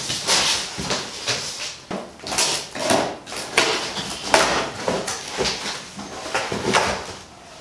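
A large cardboard speaker box being opened by hand: flaps folded back and cardboard and packing scraped and rustled in irregular bursts.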